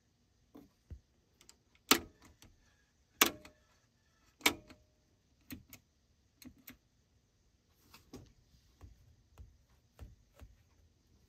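Pushbutton switches on a Fisher CA-800 amplifier's front panel clicking as they are pressed: three loud clicks about a second and a quarter apart, then lighter clicks and taps.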